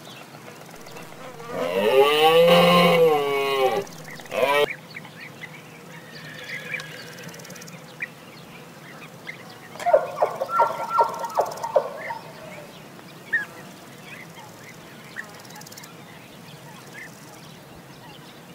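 Moose calling: a long moaning call whose pitch rises and then falls, starting about a second and a half in. A short call follows, and around ten seconds in comes a quick run of pulsed calls.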